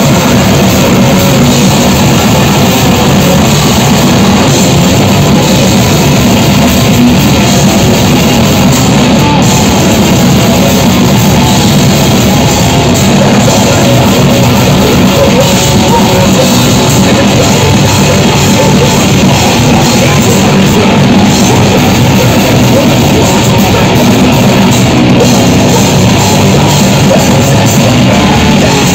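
Grindcore band playing live and very loud: distorted guitar and bass, a pounding drum kit and shouted vocals, packed into one dense, unbroken wall of sound.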